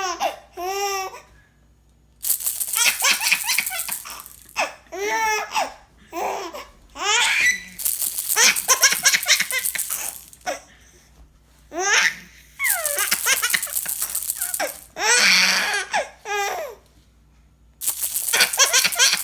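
A baby laughing in repeated fits of giggles and belly laughs, set off by a rattle being shaken in short bursts between the laughs.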